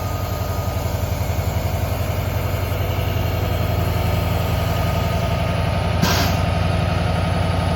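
Diesel freight locomotive engine running steadily at low throttle close by, a deep pulsing rumble. A short hiss of air breaks in about six seconds in.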